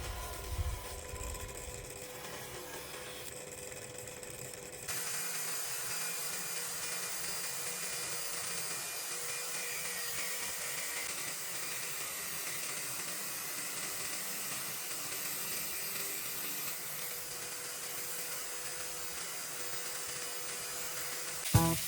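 Small high-speed rotary tool running steadily with a hissing grind. The hiss steps up about five seconds in and stays even after that.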